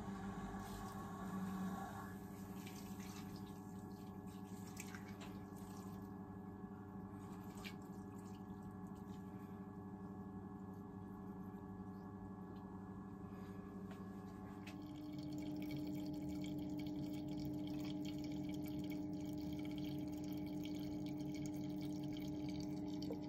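Steady electric hum of a Grainfather all-in-one brewing system's recirculation pump during the mash, with faint trickling of wort and a few light scrapes of the stirring paddle. About two-thirds of the way through the hum shifts to a slightly different, louder pitch.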